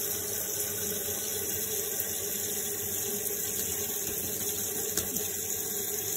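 Kitchen tap running steadily, water splashing into a stainless steel sink.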